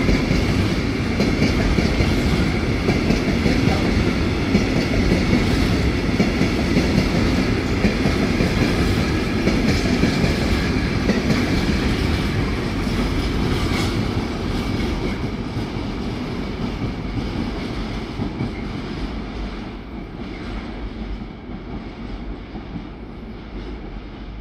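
Fully loaded freight train of gravel hopper wagons rolling past, steel wheels running over the rails in a steady loud noise that fades away over the last ten seconds as the end of the train goes by.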